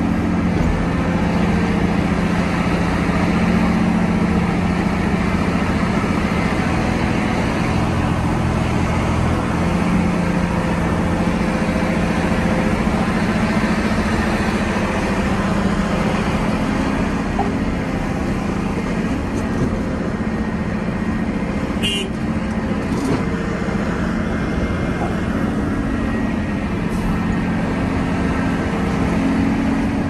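Volvo EC700B excavator working while loading trucks: its diesel engine runs steadily under load, the pitch rising and falling every few seconds as the hydraulics work, over a broad mechanical rumble. A brief, sharp high-pitched sound comes about two-thirds of the way through.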